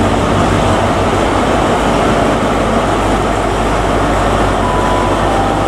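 Class 43 HST power car's diesel engine running steadily with a constant low hum.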